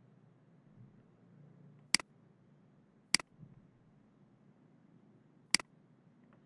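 Three sharp clicks of a computer mouse button, each a quick press-and-release double tick, spaced about a second and then two seconds apart, over a faint low room hum.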